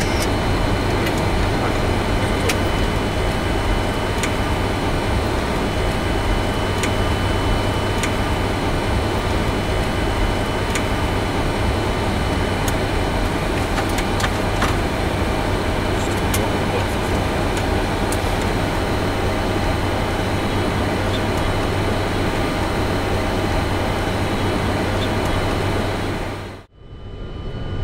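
Steady flight-deck noise of a Boeing 747-400 freighter slowing and taxiing off the runway after landing: an even rush with a low hum and a few steady whining tones, with occasional faint clicks. Near the end it cuts off abruptly to near silence for about a second, then comes back.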